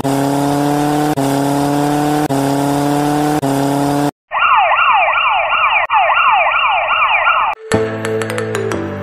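Edited-in sound effects. First an engine revving with a slowly rising pitch, restarting about once a second. About four seconds in, an emergency siren takes over, sweeping in quick repeated whoops. Near the end it cuts suddenly to music.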